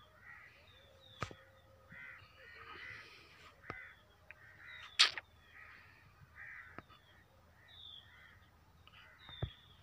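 Birds calling: repeated harsh calls with short, high, falling chirps among them. Several sharp clicks cut in, the loudest about five seconds in.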